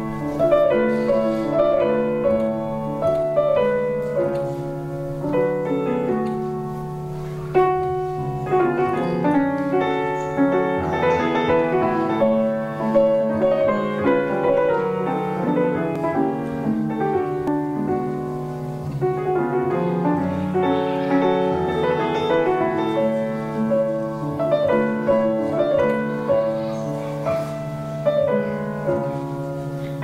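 A piano played solo: a classical piece of flowing notes that runs without pause, with a steady low hum underneath.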